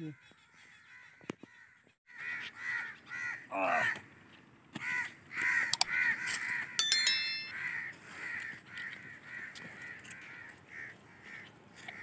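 Birds calling over and over in short calls, about three a second. About seven seconds in comes a short electronic chime from a subscribe-button animation.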